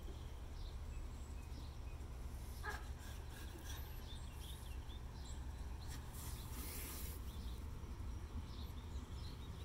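Outdoor ambience: a steady low wind rumble on the microphone with faint scattered bird chirps, and a brief rustle about six seconds in.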